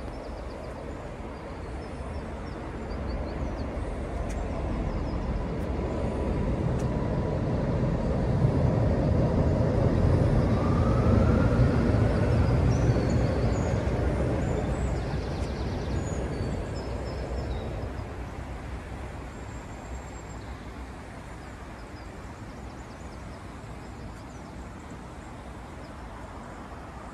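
A train crossing a high bridge overhead: a low rumble that builds over several seconds, peaks about eleven seconds in and fades away, with a faint whine that rises in pitch near its loudest.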